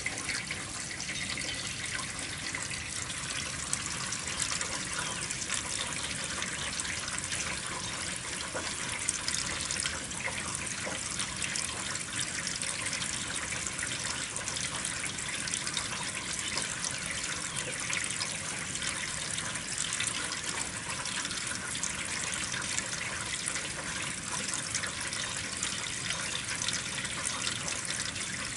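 Steady spring rain falling, a dense, even hiss of many small drop hits that holds at one level throughout.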